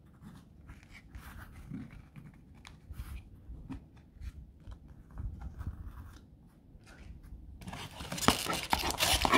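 Trading cards and their packaging being handled: faint rustles and clicks, then, near the end, a loud, crackly rustle of packaging being worked.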